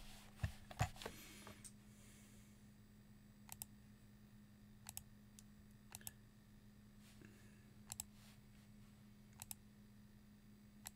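Scattered single computer clicks, about a second or more apart, over a faint steady low hum in a near-silent small room, with a couple of soft thumps in the first second.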